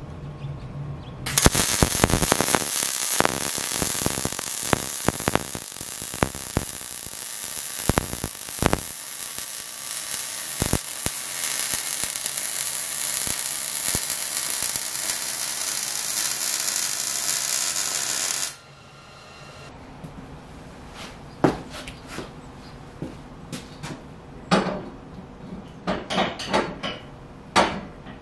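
MIG welder arc crackling and hissing steadily while a steel bracket is welded onto steel tube; it starts about a second in and stops abruptly after about 17 seconds. Afterwards come scattered sharp metal clicks and knocks.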